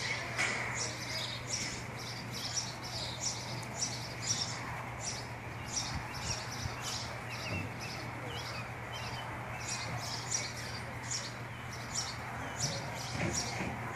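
High, short chirps repeating evenly about twice a second, over a steady low hum.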